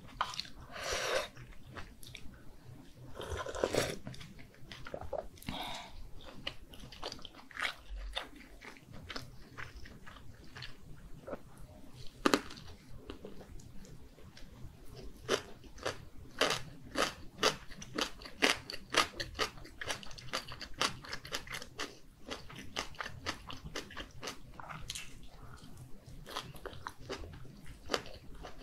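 Close-miked eating sounds: two slurping sips from a cup in the first few seconds, then wet chewing of a mini gimbap roll with many quick mouth smacks and clicks, thickest in the second half.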